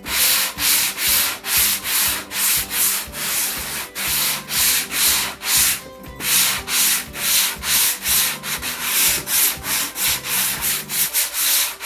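Hand sanding with a small block of 150–220 grit sandpaper over dried chalk-finish paint on a fabric chair seat: quick back-and-forth strokes, about two a second, each a hiss of grit on the stiffened painted fabric. It is the light sand between coats of paint.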